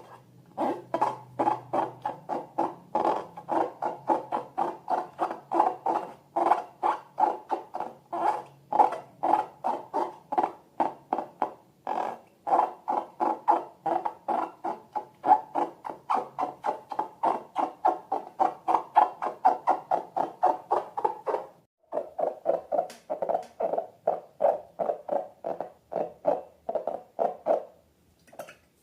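Rubbery squeaks and squelches repeating about three times a second, from balloons and slime being squeezed and worked by hand. They break off briefly about two-thirds of the way through, then carry on a little lower in pitch.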